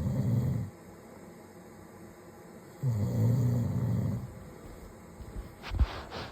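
A man snoring: a deep, rough snore fading out just after the start, and another full one about three seconds in, one every few seconds. Near the end there are a few short knocks and clicks.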